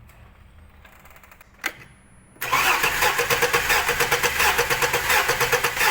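Car engine being cranked over on the starter motor, with no firing, for a compression test on cylinder 4. It starts about two and a half seconds in and goes with a fast, even chug. That cylinder reads zero compression, which the mechanic puts down most likely to a broken or faulty valve.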